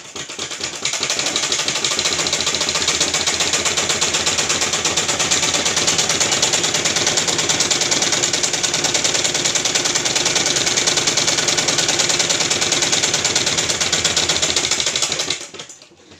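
Old-style black straight-stitch sewing machine running at a steady speed, a fast, even clatter as it stitches a straight seam through long cloth. It starts about half a second in and stops shortly before the end.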